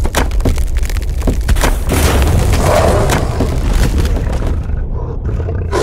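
Intro sound effects: a deep, steady booming rumble under a quick run of sharp cracking impacts, like ice breaking apart. The cracks thin out about five seconds in.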